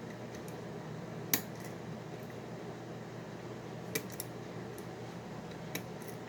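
Dimple-lock picking tools working the pins and sliders of a Mauer NW4 high-security dimple lock: a few sharp, scattered metallic clicks over a steady low hum.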